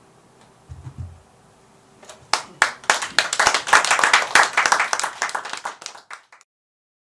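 Small audience clapping, starting about two seconds in and cutting off suddenly near the end; a short low thump comes about a second in.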